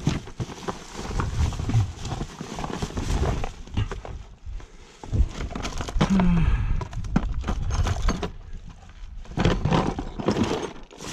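Rummaging through a bag of discarded cords and electronics: irregular knocks, clatter and rustling as the items are handled, with a short low voice sound about six seconds in.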